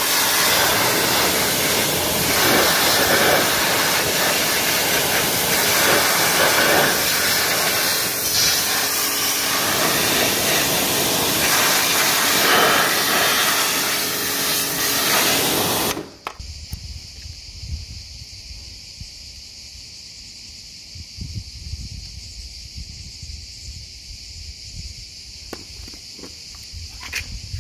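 Pressure washer lance spraying a hard jet of water against the underside of a motorcycle, a loud steady hiss that cuts off suddenly about halfway through. After it stops, only a much quieter steady high hiss and a low rumble remain.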